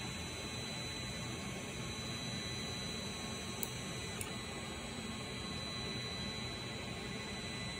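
Creality Ender-3 Pro 3D printer running steadily mid-print, its stepper motors driving the bed and print head over the constant hum of its fans. Two short clicks come about half a second apart, a little before the middle.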